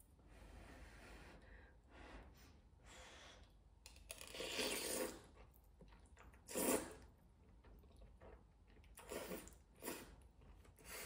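Noodles in coconut broth being slurped off a fork: a longer slurp about four seconds in, a short loud one a couple of seconds later, and two quicker ones near the end.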